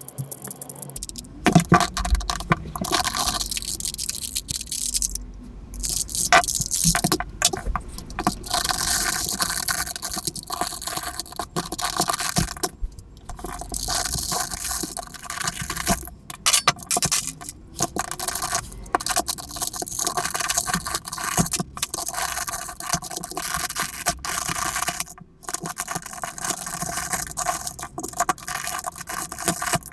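Plastic Rubik's cube handled and taken apart by hand: pieces scraping against each other with many sharp clicks and rattles.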